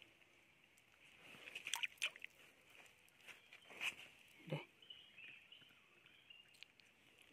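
Faint, scattered splashes and squelches of hands groping in a shallow muddy stream pool to catch loaches, a few short bursts about two and four seconds in, over a steady high insect drone from the forest.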